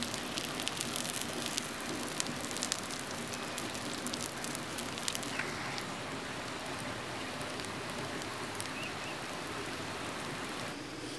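Snakehead fish sizzling on a hot stone slab over embers: a steady hiss with many sharp crackles for the first five seconds or so, thinning out after that.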